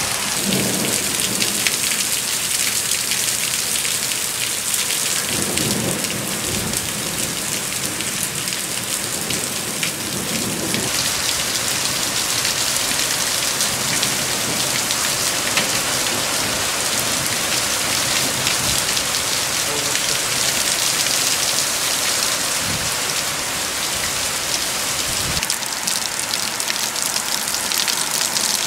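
Heavy rain pouring down in a thunderstorm, a loud, steady, dense hiss, with a few low rumbles of thunder underneath.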